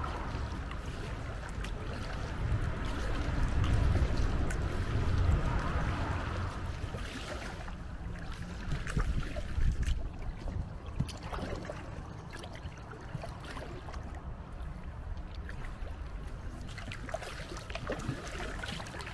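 Kayak paddling on a calm river: double-bladed paddles dipping and pulling through the water, with scattered splashes and drips as the blades lift out. A steady low rumble underlies it, strongest over the first six seconds.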